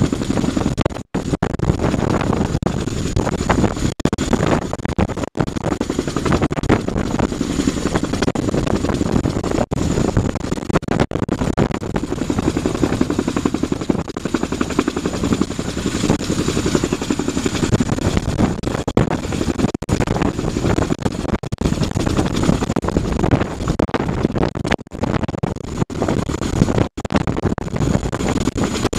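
CH-47 Chinook tandem-rotor helicopter hovering low, its rotors chopping steadily with a thin high whine from its twin turboshaft engines above the rotor noise.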